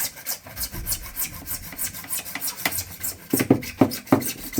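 Small hand saw cutting through PVC pipe, back-and-forth strokes about three a second, growing heavier near the end.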